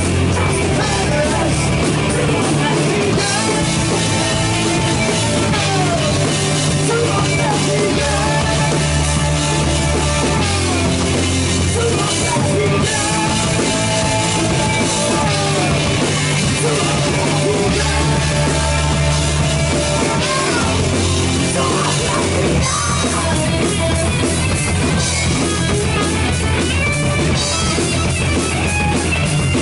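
Live heavy rock band playing loud: electric guitars, bass and a drum kit, with sustained low bass notes and gliding melodic lines above them.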